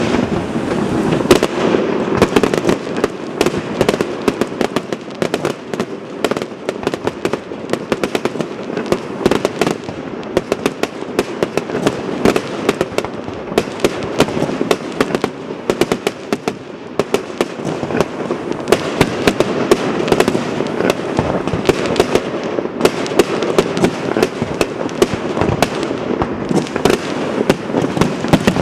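Fireworks finale: a dense, continuous barrage of aerial shells bursting, with sharp bangs coming several a second over a steady crackle.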